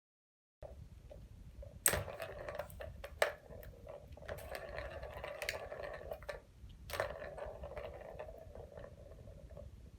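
A ball rolling and rattling around a plastic cat toy, with several sharp knocks, the loudest about two seconds in and about seven seconds in.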